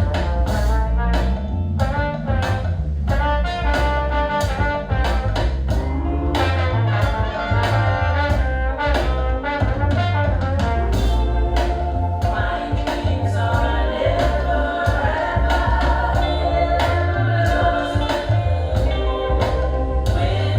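Music with brass instruments over a heavy bass line and a steady drum beat.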